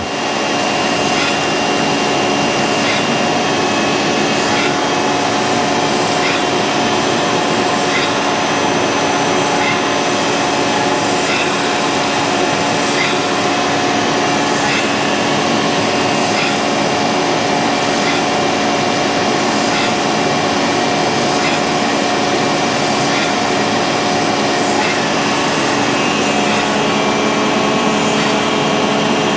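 Cam grinding machine regrinding the three-lobe fuel pump lobe of a GM Gen 5 L8T camshaft under flowing coolant. The grinding wheel runs with a steady hum, and a faint tick repeats about every second and a half to two seconds as the cam turns slowly.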